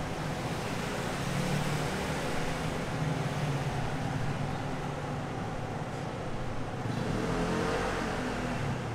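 Street traffic noise: a steady hum of passing vehicles that swells a few times as they go by.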